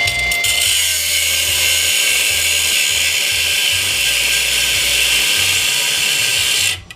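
High-speed rotary cutting tool cutting into the cast-aluminum coupling of a fire hose. Its high whine drops in pitch about a second in as it bites into the metal, a steady hiss of cutting runs under it, and the tool stops suddenly near the end.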